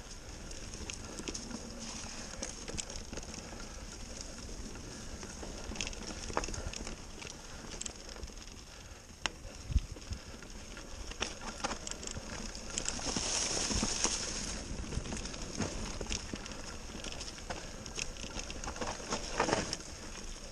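Mountain bike riding over a dirt trail covered in dry leaves: tyres rolling over leaves and ground, with scattered knocks and rattles from the bike over bumps, a hard knock about halfway through, and a louder rush of noise a little after.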